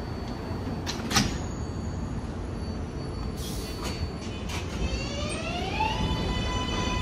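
Electric motor whine of an R188 subway train starting about four and a half seconds in, its pitch rising as the train accelerates and then levelling off, over a steady rail rumble. Earlier there is a sharp click about a second in and a short hiss of air a little past three seconds.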